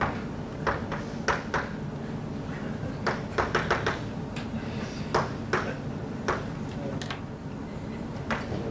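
Chalk tapping and scraping on a chalkboard as words are written, a string of short sharp clicks with a quick flurry about three to four seconds in, over a steady low hum.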